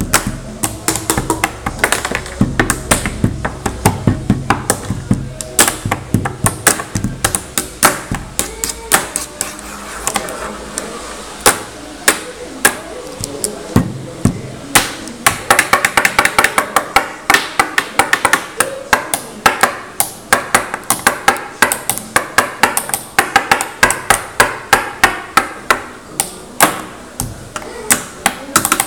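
Pen tapping: a plastic pen beaten with the hands against a wooden desk, giving fast, rhythmic clicks and knocks played as percussion beats, several hits a second.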